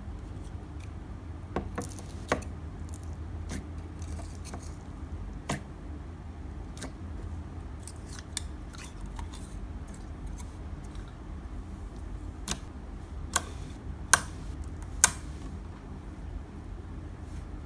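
Bubbly clear slime worked by hand, with scattered sharp pops and clicks of trapped air bubbles over a steady low hum. The three loudest pops come close together near the end.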